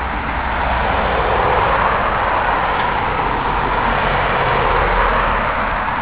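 Road traffic on a rural road: a passing vehicle's tyre and engine noise swells about a second in, holds, and eases off near the end, over a low rumble.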